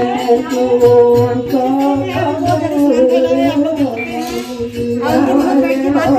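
Devotional song: voices singing long, gliding notes over a regular drum beat of about two beats a second, with a jingling percussion like a tambourine.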